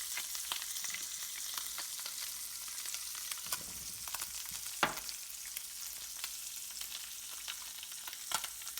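Bluegill fillets frying in butter in a pan on medium-high heat: a steady sizzle with crackles, and a sharper pop about five seconds in and again near the end.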